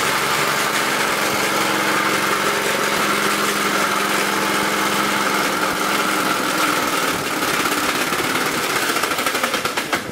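The single-cylinder engine of a 1920 Briggs & Stratton Flyer's motor wheel running steadily at an even pitch as the buckboard drives off.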